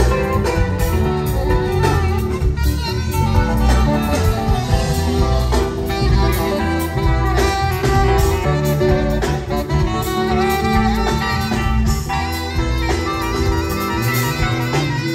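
Live band music amplified through a stage PA: a heavy bass line and drums under keyboards, with a saxophone playing over them.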